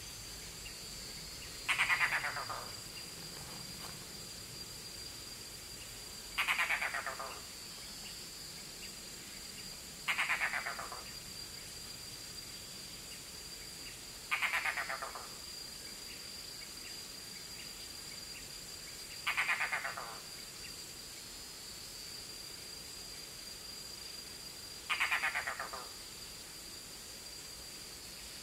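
Red-bearded bee-eater giving six harsh, falling, rattling calls, each about a second long and a few seconds apart, calling to its young before entering the nest. A steady high insect drone runs underneath.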